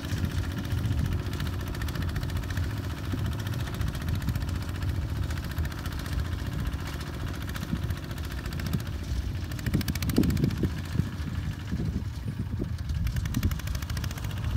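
Engine of a walk-behind tractor converted into a ride-on 4x4 tractor, running steadily under load as it pulls a three-disc plough through dry ground.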